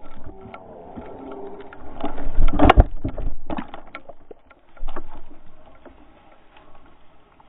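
Honda 400EX quad's engine running with wavering revs, then a loud cluster of thuds and knocks about two to three seconds in and another burst about five seconds in.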